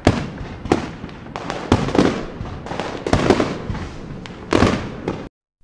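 An irregular string of sharp bangs, one to three a second, each trailing off in an echo; the sound cuts off abruptly shortly before the end.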